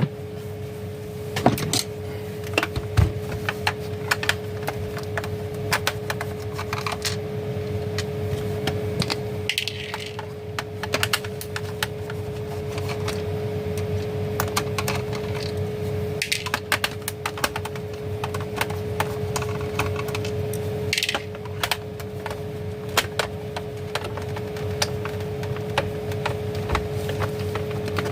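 Irregular clicks, taps and small cracks of a plastic rechargeable emergency light being handled and opened up, with a few louder knocks, over a steady hum.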